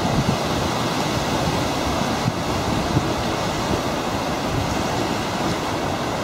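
Strong wind buffeting the microphone, with a steady rush of choppy lake water underneath.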